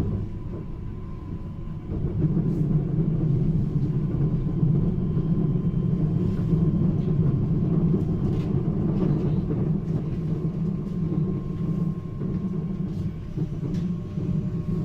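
Inside a regional express train under way: a steady low rumble from the wheels and running gear, getting louder about two seconds in, with a faint steady whine and a few light clicks.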